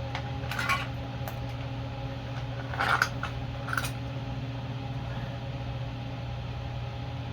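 A few brief clicks and scrapes of the pressure washer's engine cover and parts being handled, about a second, three and four seconds in, over a steady electric hum like a running fan.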